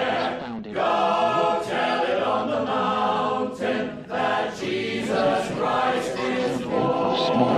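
A choir singing in sustained phrases, with brief breaks between lines.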